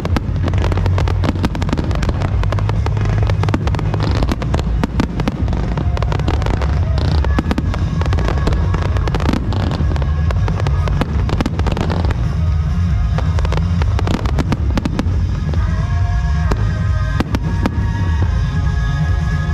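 Aerial fireworks bursting in rapid, continuous succession during a finale barrage, with sharp cracks over a steady low rumble. Music with held notes plays along and becomes more prominent in the second half.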